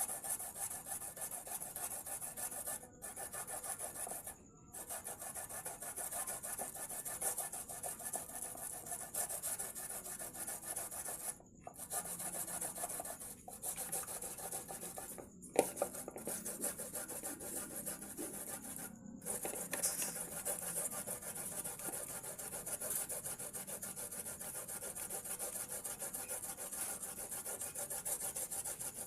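Turmeric root being grated by hand on a grater: fast, continuous rasping strokes with a few short pauses, and one sharp knock about halfway through.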